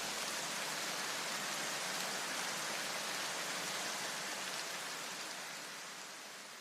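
Steady, dense hiss of heavy rain that fades out toward the end.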